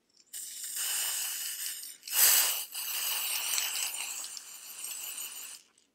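Aerosol can of China Glaze colored nail spray hissing as it sprays onto fingernails, in two long bursts: the first about a second and a half, the second starting louder about two seconds in and lasting over three seconds.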